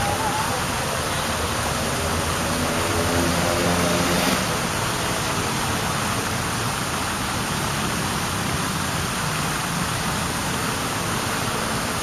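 Steady roar of city traffic, growing a little louder and then dropping back suddenly about four seconds in.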